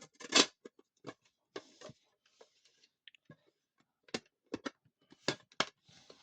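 Irregular clicks, knocks and short scrapes from handling a wall clock as its glass front is pressed back onto its retaining clips, with two sharper clicks near the end.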